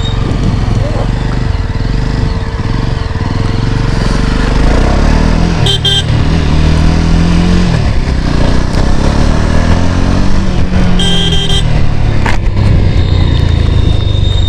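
Jawa 42 2.1 motorcycle's single-cylinder engine running under way, its pitch rising and falling as the rider works the throttle through the gears, with wind on the microphone. Two short high-pitched beeps cut in about six and eleven seconds in.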